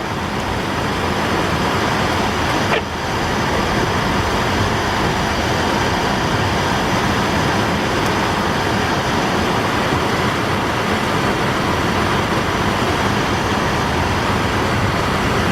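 Steady noise of a car driving, heard from inside the cabin, with a brief knock about three seconds in.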